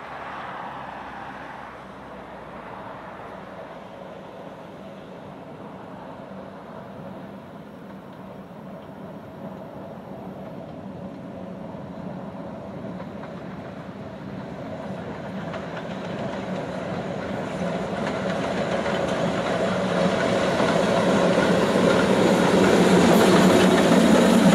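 OKz32 steam tank locomotive hauling a train of old passenger coaches. It runs along the line with wheels clattering over the rail joints, growing steadily louder in the second half as it draws close.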